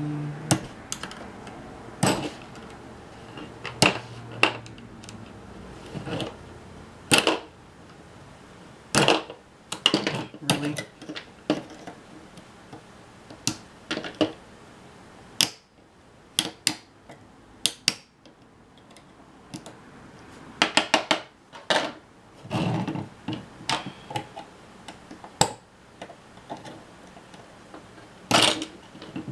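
Irregular small clicks and taps of a screwdriver and fingers working plastic gears on the thin metal chassis plate of a JVC GR-SMX740 camcorder's tape mechanism, some clicks coming in quick clusters.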